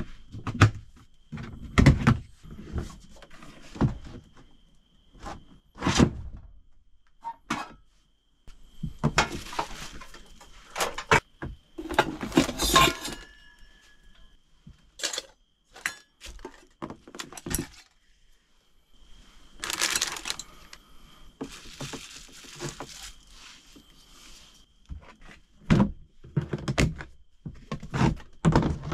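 Plastic storage box being opened, rummaged and closed by hand: a string of hollow plastic knocks and clicks from the lid and latches, with two longer stretches of rustling and clinking as bubble-wrapped gear is moved about inside.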